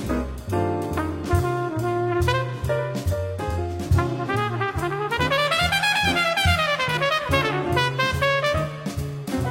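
Jazz music led by brass horns over a walking bass line. About halfway through, a horn line runs up in pitch and back down.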